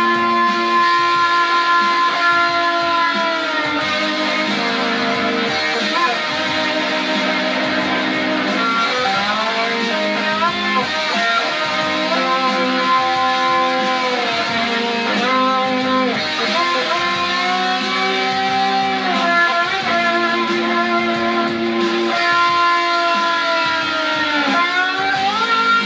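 Instrumental guitar music: long held lead notes, several bent up and down in pitch, over sustained lower chords.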